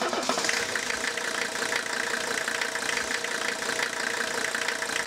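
An engine idling with a steady, fast clatter.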